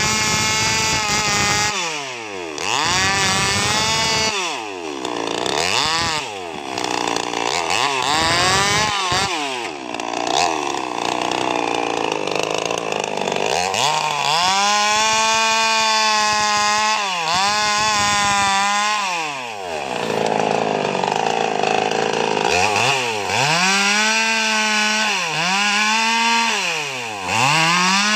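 Two-stroke chainsaw cutting felled sengon logs into lengths. The engine revs up and drops back again and again in the first few seconds, then holds at full revs through longer cuts near the middle and near the end.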